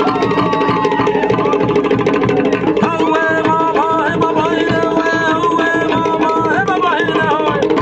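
Cook Islands drum-dance music: fast, steady beating on wooden log drums and drums, with a higher melody joining about three seconds in.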